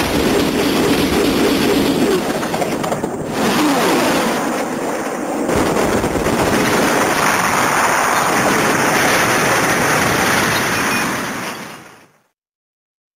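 Sound effect played by an Earth Garon key toy: a loud, continuous mechanical noise like a heavy machine or vehicle running, with a pitch sweep about four seconds in, fading out near the end.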